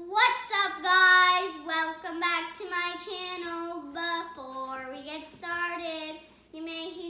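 A young girl singing a short tune unaccompanied, in a string of steady held notes.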